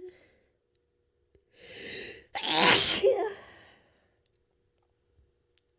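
A woman's loud, vocal sneeze, let go after being held back: a drawn-in breath about a second and a half in, then one sudden voiced sneeze that trails off.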